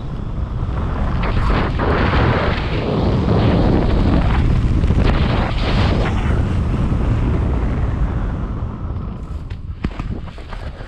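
Wind rushing and buffeting over the camera microphone during a low canopy flight and landing. It is loud at first, then eases off as the flyer touches down and slows, with a few sharp knocks near the end.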